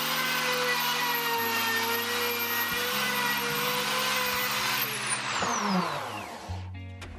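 Electric plunge router running at full speed as it cuts along the edge of a birch plywood panel, a steady high whine. About five seconds in it is switched off and winds down with a falling whine. Background music with a low bass line plays underneath.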